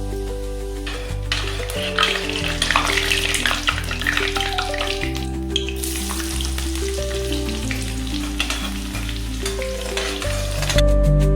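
Food sizzling and frying in a hot pan, starting about a second in and dying away near the end, over background music.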